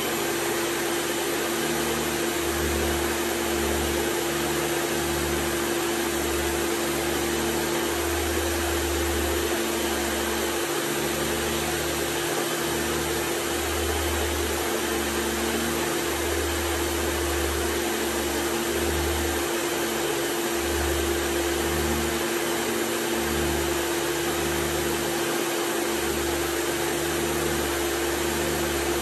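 Vintage Hoover canister vacuum cleaner running steadily on carpet, its motor giving a constant whine over an even rushing of air. A low rumble swells and eases unevenly as the wand is worked back and forth.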